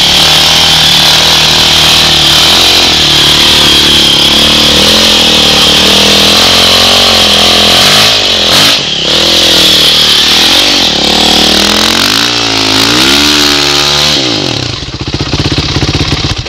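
Trail motorcycle engine revving hard in repeated surges, its pitch rising and falling as it is ridden over rocks. It drops back about two seconds before the end.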